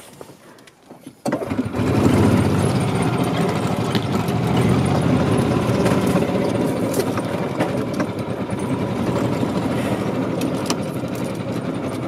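A small vehicle's engine starts about a second in and then runs steadily.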